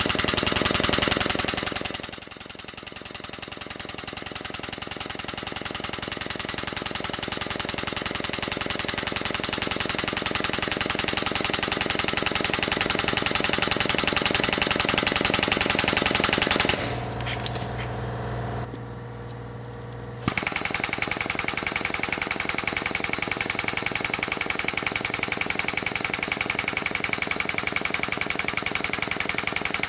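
Air-over-hydraulic jack's air-driven pump chattering rapidly as it drives the ram of a homemade tube bender through a bend in annealed 6061 aluminium tubing. The rattle dips for about three seconds a little past the middle, then picks up again and runs on steadily.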